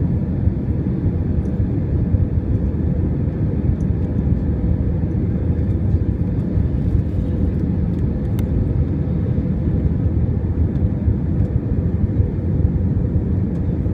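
Steady low rumble of an Airbus A321's jet engines and airflow, heard inside the passenger cabin while the airliner descends on approach to land.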